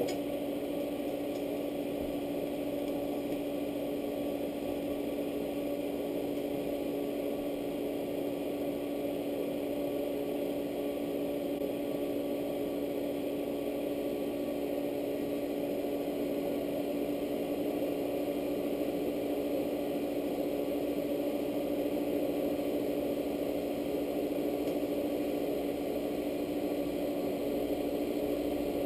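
Steady electrical hum of a TIG welding machine running, a few fixed tones with no change in level while the arc is struck and stopped.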